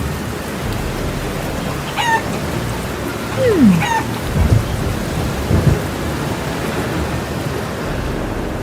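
Steady rain, with two low rumbles of thunder a little past halfway and a couple of short bird chirps.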